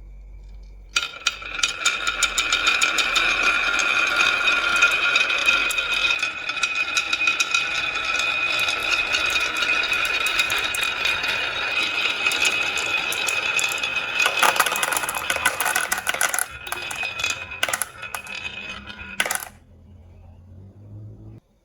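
Many marbles rolling and clattering down a marble-run track: a dense rattle of rapid clicks over a steady high ringing tone. It begins about a second in and cuts off suddenly near the end, leaving a few faint knocks.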